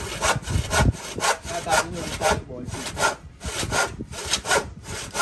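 Hand saw cutting through an old weathered wooden plank, steady back-and-forth strokes at about three a second.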